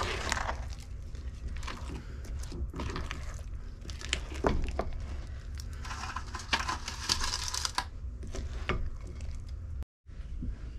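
Hands-on baking work in a kitchen: scattered clicks and knocks of utensils against a bowl and pan, with a stretch of crinkling partway through, over a steady low hum. The sound drops out suddenly near the end.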